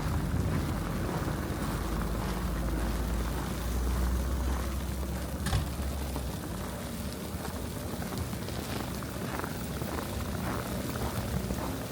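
Boots crunching through fresh snow, about two steps a second in the second half, over a low rumble that dies away about six seconds in.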